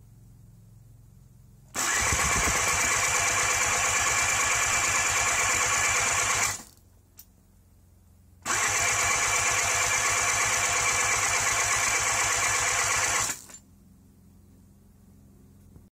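Electric starter cranking the Aprilia SR50 Ditech's 50 cc two-stroke engine in two bursts of about five seconds each, with a compression gauge fitted in place of the spark plug. The gauge shows only about 2 bar, which is very low compression.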